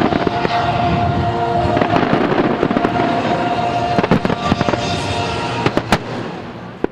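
Aerial fireworks going off in a dense run of crackling pops with a few sharper bangs, over a held tone from accompanying music. The noise thins and falls away over the last second.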